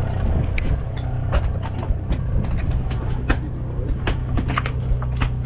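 Charter boat's engine running steadily with a low hum, with scattered sharp clicks and knocks on deck over it.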